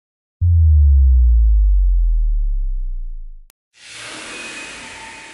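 Electronic intro sound effects: a deep sub-bass boom that slowly sinks in pitch and fades out over about three seconds, a single click, then a steady hissing noise swell leading into electronic music.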